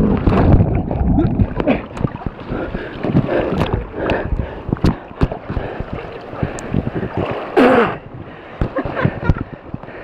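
River water splashing and sloshing, with scattered knocks, as a dirt bike and its rider go down in a deep river crossing. The bike's revving engine cuts off right at the start, and a short vocal cry comes about seven and a half seconds in.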